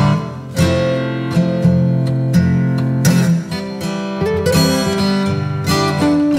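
Background music: strummed acoustic guitar chords, with a new strum about every second or so.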